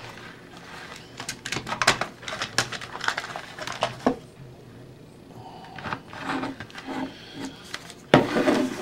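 Clicks, knocks and light rattling of hard plastic R/C car body parts being handled and set down on a wooden table, thickest in the first half, with a louder cluster of knocks near the end.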